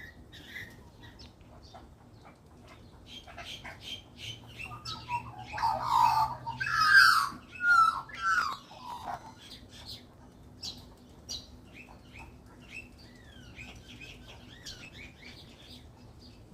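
Magpies calling while they feed: scattered chirps and short notes throughout, with a loud stretch of harsh calls from about a third of the way in to past the middle, then short falling notes.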